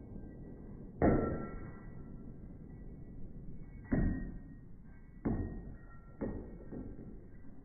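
Four sharp shots at a shooting range, irregularly spaced over a few seconds, each with a short ringing decay.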